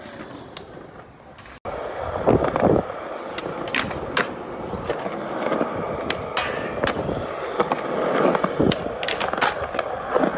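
Skateboard wheels rolling on smooth concrete, starting about a second and a half in, with sharp clacks of the board popping, hitting a ledge and landing several times.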